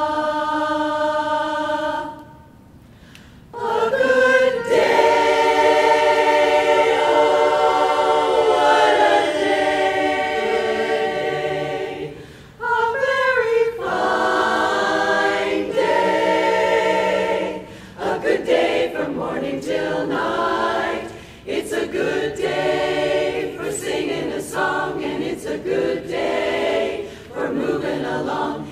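Women's barbershop chorus singing a cappella in close harmony. It opens with a single held note, pauses briefly, then moves into full sustained chords with short breaks between phrases.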